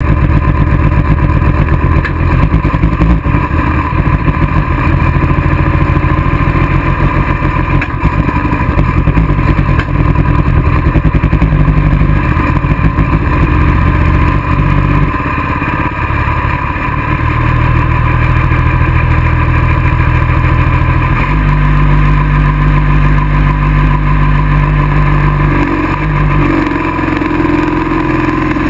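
Modified diesel engine of a Limited Pro pulling tractor running loud and close, its note shifting several times, then revving up near the end as the throttle opens for the pull.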